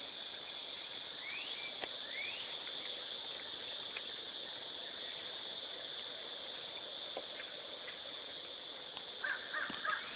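Outdoor ambience with a steady high insect-like drone and two short rising squeaky calls early on. Near the end comes a quick run of short, harsh animal calls.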